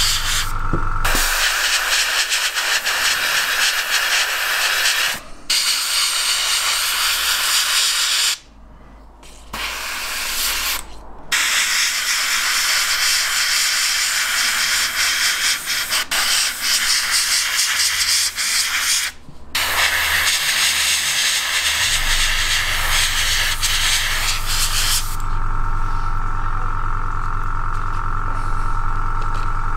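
Airbrush spraying primer in long hisses, broken by a few short pauses where the trigger is let off. Near the end the spraying stops and a low steady hum, the airbrush's air compressor, carries on.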